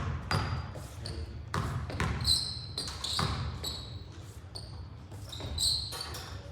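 Basketball bouncing irregularly on the court with sneakers squeaking during play, in a large echoing gym.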